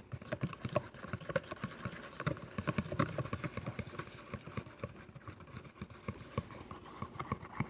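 A utensil stirring shampoo and body wash in a mixing bowl: a fast, irregular run of clicks and taps against the bowl.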